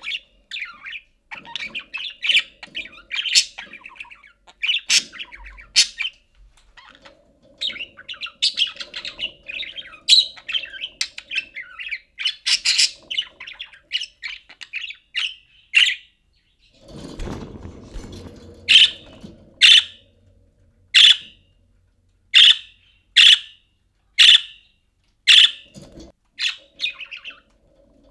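Budgerigar chattering and warbling continuously, then, after a brief rustle about two-thirds of the way in, a run of loud, sharp single chirps about one a second.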